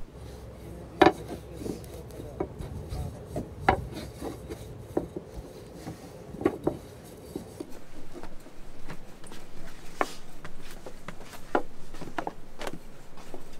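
Kitchen work sounds: irregular light knocks and rubbing, with the knocks a second or two apart and the sharpest about a second in.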